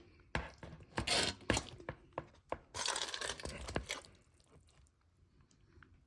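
A utensil knocking and scraping against a bowl as chopped grinder salad is spooned onto a sandwich: several sharp knocks, then a stretch of scraping and rustling about three seconds in, quieter toward the end.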